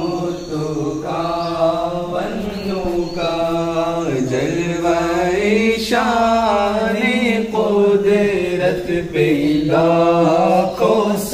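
A voice singing an Urdu naat (Islamic devotional song) in slow, held melodic phrases whose pitch rises and falls.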